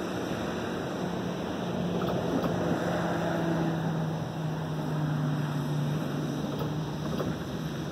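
A distant engine's low hum, loudest in the middle and sinking slightly in pitch, over a steady rushing noise.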